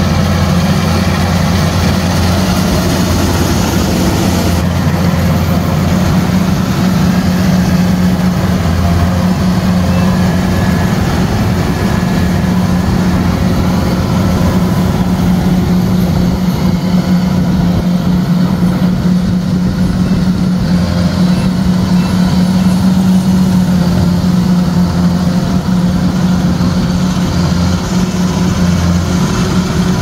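Kubota DC-105X crawler combine harvester running steadily as it cuts and threshes rice: a constant low drone from its diesel engine and machinery.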